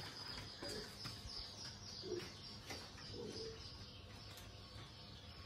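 Faint bird cooing: two soft coos, about two and three seconds in.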